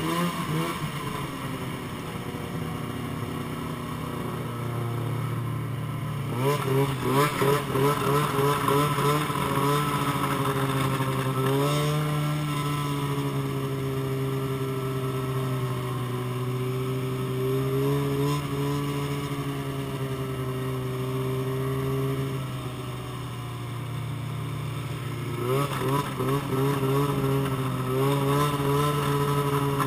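Snowmobile engine running under way, its note rising and falling with the throttle, with choppy pulsing surges about six seconds in and again near the end.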